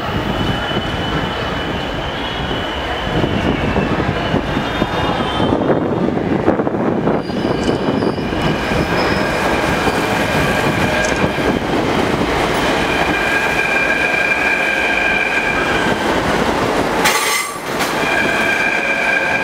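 Mumbai Metro train running slowly through a crossover as it changes tracks, its wheels rolling with a steady rumble and squealing in high steady tones through the curved points. The squeal grows stronger about halfway through.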